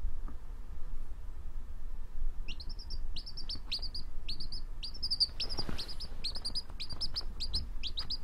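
A baby chick peeping: a run of short, high peeps, several a second, starting about two and a half seconds in and keeping on. Under it runs a low steady rumble.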